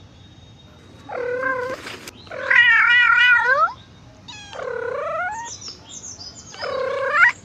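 A cat yowling four times: long, drawn-out meows with a wavering pitch, the second one the loudest.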